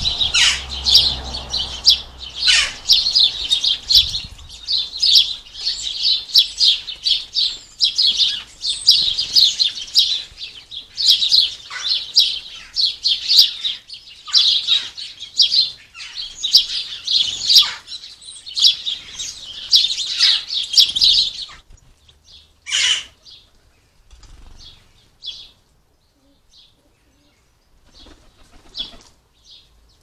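European goldfinches and house sparrows twittering and chirping busily, many quick high notes overlapping, for about twenty seconds, then thinning to scattered single calls.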